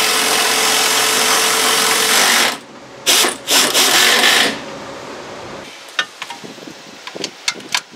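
Cordless power ratchet running steadily with a steady whine, then stopping and giving three short bursts. About six seconds in, a hand ratchet clicks in short uneven strokes.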